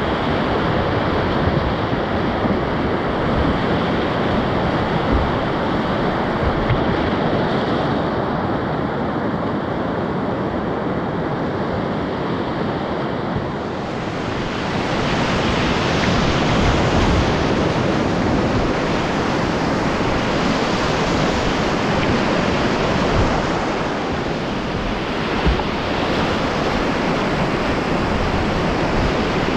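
Rushing whitewater of a river rapid, a steady loud wash of water. About halfway through the rush grows brighter and hissier.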